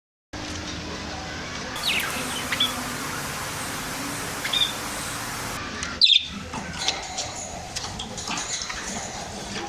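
Pigeons calling in short, high, downward-sliding chirps, a few at first and then a quicker run of chirps and clicks in the second half. The sound drops out for a moment at the very start.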